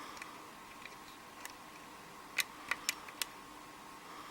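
Metal lock pick clicking against the pins inside a Schlage pin-tumbler cylinder during single-pin picking: a few faint ticks, then four sharper clicks in quick succession a little past halfway.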